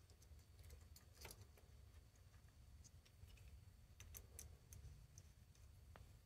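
Near silence over a low steady hum, with faint scattered small clicks from fingers and a small screwdriver working a plastic pluggable screw-terminal connector as a wire is fitted and its screw tightened.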